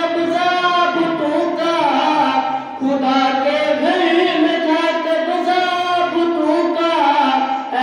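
A boy singing a devotional Urdu qasida into a microphone, a single voice holding long melodic notes that glide from pitch to pitch, with brief breaths between phrases.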